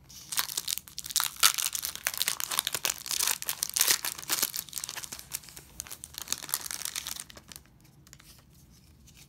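Foil wrapper of a Pokémon trading-card booster pack being torn open and crinkled by hand, a dense crackling that stops about seven seconds in.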